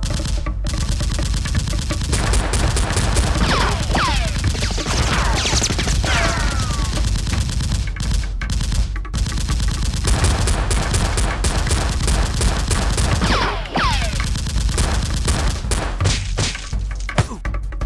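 Movie-style automatic gunfire sound effects: rapid, continuous bursts of shots with several whines falling in pitch, like ricochets.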